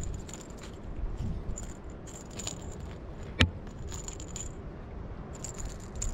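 A cat scrabbling and batting at a feather teaser toy on rough concrete: light scratching, rattling and clicking, with one sharp click about three and a half seconds in, over a low steady rumble.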